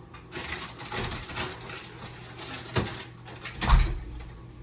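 Kitchen handling noises while cooking: scattered light knocks and clatter, with a sharp knock near three seconds in and a louder thump just under four seconds in.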